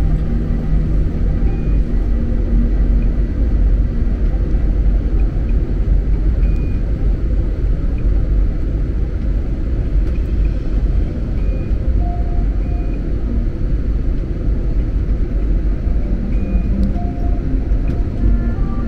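Steady low rumble of an airliner in flight, heard from inside the cabin: engine and airflow noise with no breaks.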